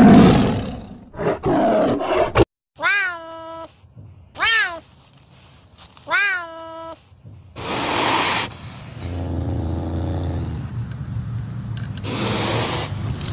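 A white tiger gives a rough growling roar that is cut off after about two and a half seconds. Then a serval makes three short, meow-like calls that rise in pitch and level off. These are followed by two longer, breathy calls.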